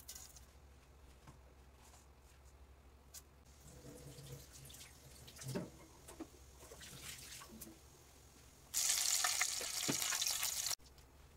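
Cumin and nigella seeds frying in hot oil: a faint crackle with a few clicks, then a loud sizzle for about two seconds near the end that cuts off abruptly.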